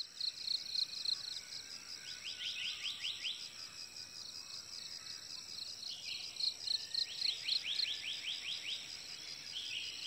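Wild ambience of an insect chorus, a steady high pulsing trill of crickets, with two bursts of rapid repeated chirping calls, about six a second, a couple of seconds in and again past the middle.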